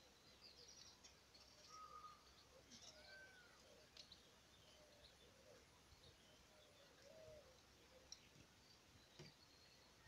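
Faint songs of several small birds: quick high chirps and trills mixed with short whistled notes and softer, lower calls throughout.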